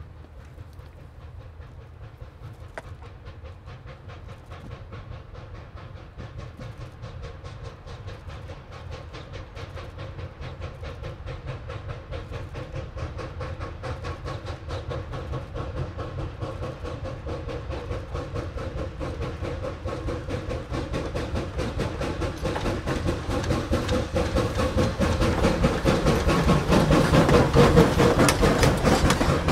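Replica Civil War-era 4-4-0 steam locomotive working hard on approach, its rapid exhaust beats growing steadily louder and peaking as it passes close by. The coach wheels click over the rail joints near the end.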